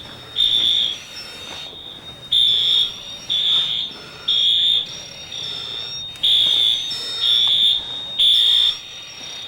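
Building fire alarm sounding: loud high-pitched beeps in groups of three, about one a second, with a pause after each group, the temporal-three evacuation pattern. A fainter steady tone runs under the beeps.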